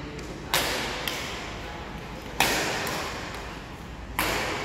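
Badminton rackets striking shuttlecocks: three sharp hits about two seconds apart, with a weaker tap between the first two, each echoing briefly in a large hall.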